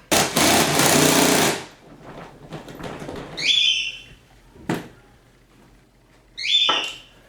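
A power tool runs in one rapid rattling burst of about a second and a half, followed by two short squeaks and a sharp click.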